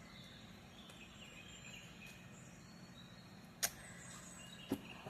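Faint high chirping over a steady low hum, with one sharp click about three and a half seconds in and a softer click near the end.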